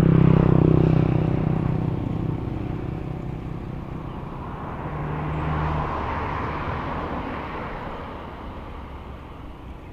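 Motor vehicles passing by. The first is loudest at the start and fades over about two seconds; a second swells about five seconds in and then fades away.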